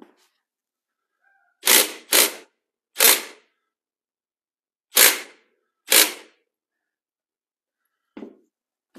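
Cordless impact wrench hammering in short trigger bursts, five loud ones and a fainter one near the end, as it drives a puller's screw to separate the crankshaft from the Suzuki TS185 two-stroke crankcase.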